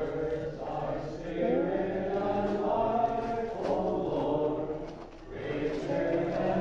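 A choir chanting, several voices holding long notes together, with a brief pause between phrases about five seconds in.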